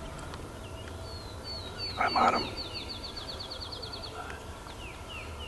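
A wild turkey calls once, short and loud, about two seconds in. A songbird runs a fast trill of high, falling notes, about six a second, then a few single notes.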